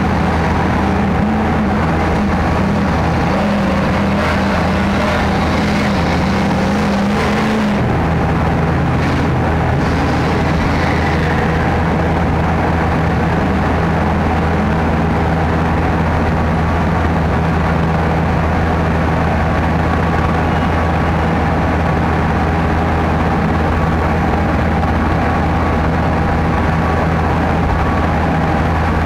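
Sherp ATV's diesel engine running steadily under load, heard from inside the cab as the vehicle drives through deep mud. The engine note drops a little about eight seconds in, then holds steady.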